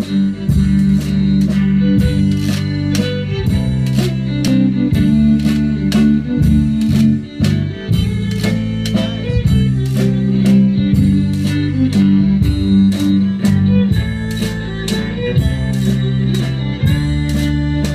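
Live zydeco band playing an instrumental tune, with fiddle, accordion, guitars and a drum kit keeping a steady beat of about two hits a second under strong bass notes.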